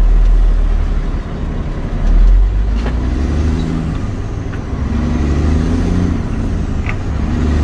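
Truck engine running on the road, a steady low drone whose pitch rises and falls as it pulls, with a louder surge about two seconds in.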